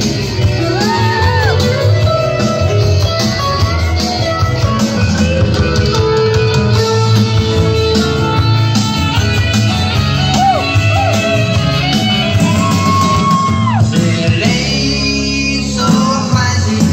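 Rock song with a singing voice and guitar, played loud over a DJ sound system.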